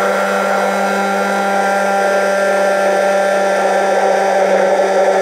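Hand-held stick blender running at a steady pitch in a plastic jug, whisking egg white and yogurt as oil is poured in to emulsify them into a mayonnaise.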